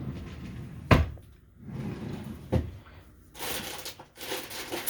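Kitchen cupboard doors being opened and knocked shut, with a sharp knock about a second in and a softer one about two and a half seconds in. Then comes a rustle of rummaging through the contents.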